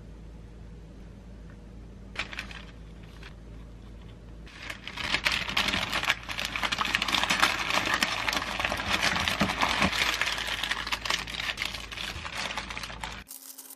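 Baking paper crinkling and rustling as a tortilla wrap is folded and rolled up in it, starting about four and a half seconds in and cutting off suddenly near the end. Before that, only a few soft taps of toppings being placed.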